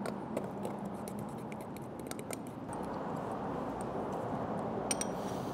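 A metal spoon stirring a thick, wet spice paste in a ceramic bowl: a continuous squelching scrape with frequent light clicks of the spoon against the bowl, a sharper few near the end.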